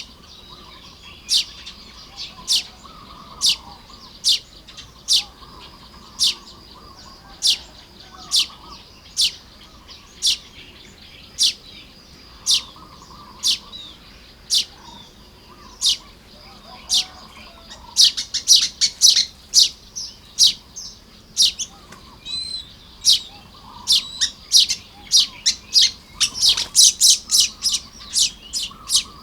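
Baya weavers calling while nest-building. Sharp high chirps come about once a second, then turn into a rapid flurry of many chirps from about two-thirds of the way in, over a softer, lower chatter.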